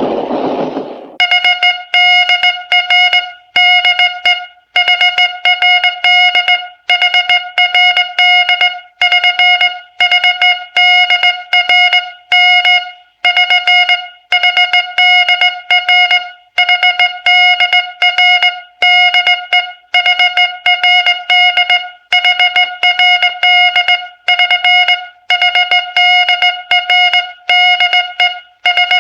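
Cartoon-style woodpecker pecking sound effect: short bursts of rapid, pitched, hollow tapping, repeating about once a second.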